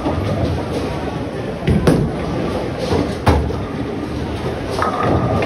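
Bowling alley noise: a steady low rumble of balls rolling down the lanes, with two sharp crashes about two and three seconds in, typical of balls striking pins.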